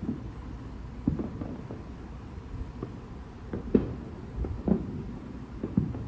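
Distant fireworks going off: several dull, low bangs scattered over a few seconds, the loudest a little past halfway, over a steady low rumble of background and wind noise.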